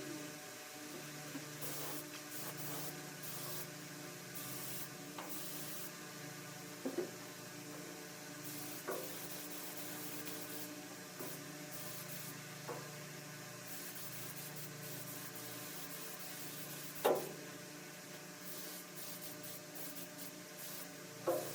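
Paint spraying: short hissing bursts of spray come and go over a steady electrical hum. A few sharp knocks fall in between, the loudest about 17 seconds in.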